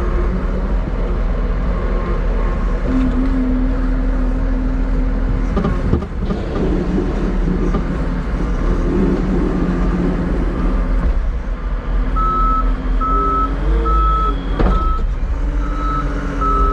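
Heavy equipment engine running and changing speed while working at a sugar beet pile. In the last few seconds a reverse alarm beeps steadily.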